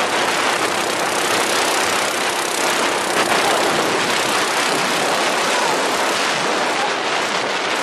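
Small minibike engine running steadily while riding, mixed with a loud rush of wind and rustling jacket fabric on the microphone.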